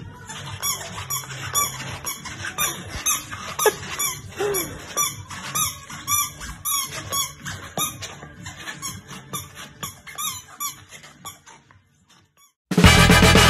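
A rubber chicken squeak toy being squeezed in a horse's mouth, squeaking over and over about twice a second. Upbeat music starts abruptly near the end, louder than the squeaks.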